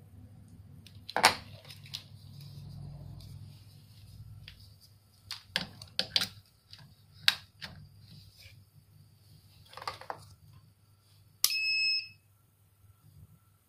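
Sharp clicks and knocks of green plastic screw-terminal plugs being pushed into a small electronic product counter's case and the box being handled. Near the end, one short electronic beep of about half a second: the counter's buzzer sounding as it powers up, with all its display segments lit.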